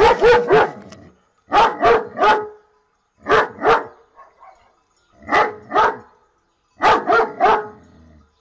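German Shepherd barking in five bursts of two or three quick barks each, the bursts about one and a half seconds apart.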